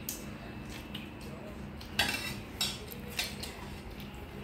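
Steel ladle and spoons clinking against steel bowls and plates: a few separate clinks with a short ring, the loudest about two seconds in.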